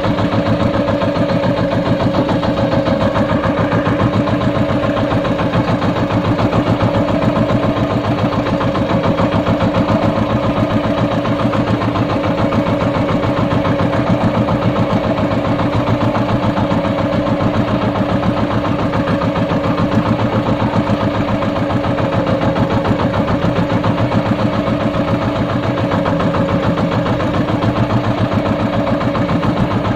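Engine of a motorized outrigger boat running steadily and loudly, a fast even beat that holds the same speed throughout.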